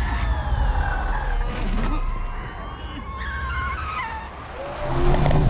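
Cars speeding through a chase, with tyres squealing in wavering, gliding screeches about one and a half seconds in and again around three seconds, over a deep, continuous rumble.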